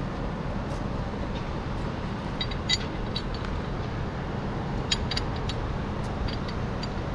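An engine running steadily at a constant low rumble, with a few sharp metallic clinks, one about a third of the way in and a quick cluster about two-thirds in.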